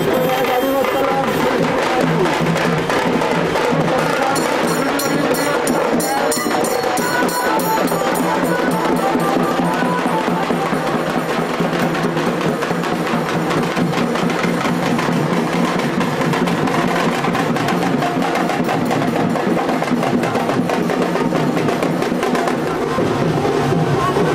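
Music driven by fast, busy percussion at a steady level.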